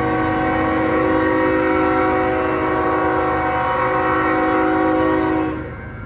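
BNSF diesel locomotive's air horn blowing one long, steady chord, loud, cutting off about five and a half seconds in and leaving the low rumble of the approaching train.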